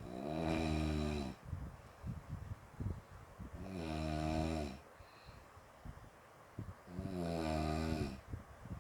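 Snoring: three long, pitched snores about three and a half seconds apart, with faint crackles between them.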